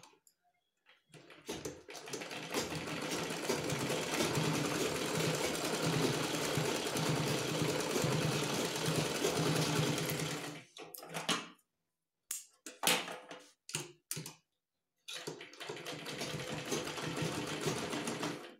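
Usha sewing machine stitching cloth: one long run of about nine seconds, a few short bursts, then another run of about three seconds near the end.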